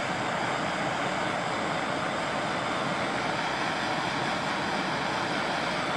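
Handheld gas torch burning with a steady, even hiss, its flame warming heat-shrink tubing over a low-voltage wire splice until it shrinks.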